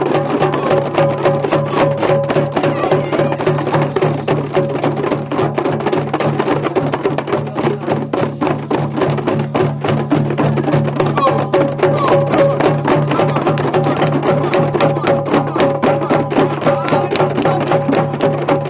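Djembe hand drums played together by a group, many hands striking in a fast, steady rhythm.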